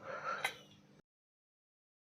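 A single sharp click about half a second in, over faint rustling handling noise. After about a second the sound cuts out to dead silence.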